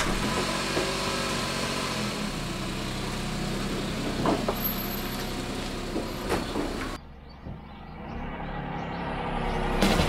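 Kei truck engine running steadily at idle, with a couple of light knocks partway through. About seven seconds in, the sound drops and turns muffled, then builds up again near the end.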